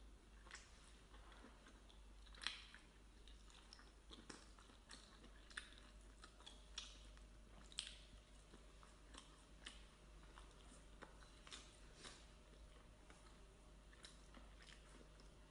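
A person chewing octopus close to the microphone: soft, irregular wet clicks and small crunches from biting and chewing, with a few louder bites.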